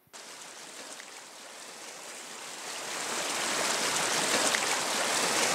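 Shallow stream running over rocks, a steady rushing hiss of water that grows gradually louder over the first few seconds.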